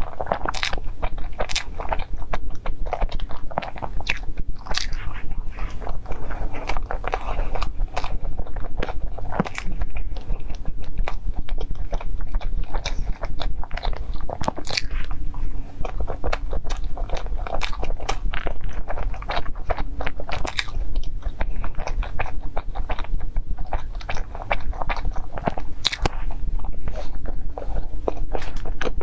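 Close-miked biting and chewing of cream puffs: soft pastry and cream worked in the mouth, with many small irregular clicks and crackles. A steady low hum lies underneath.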